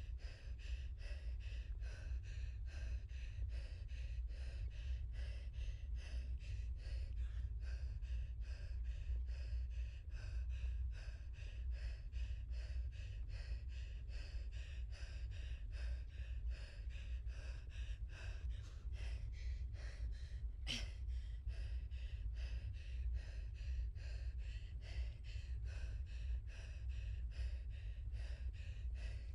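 Wind buffeting the microphone of a camera riding along on a bicycle: a steady low rumble with a rhythmic breathy hiss a little over twice a second. One sharp click about two-thirds of the way through.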